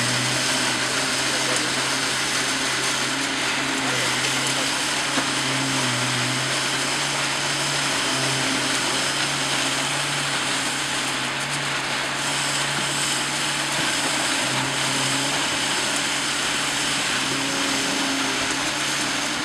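Concrete poker vibrator running steadily while its head is worked through wet concrete among rebar: a continuous motor hum that swells and eases slightly as the poker is moved.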